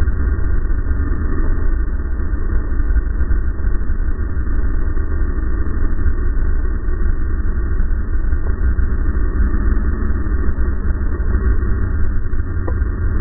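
500-class racing snowmobiles running at speed in a pack, heard from a camera on one of the sleds, with a steady heavy low rumble throughout.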